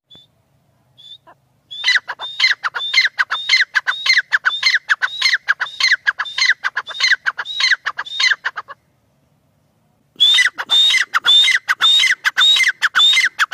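Grey francolin (teetar) calling: after a couple of faint short notes, a long run of loud, shrill repeated notes, about two a second. The run breaks off for a second or so past the middle, then starts again.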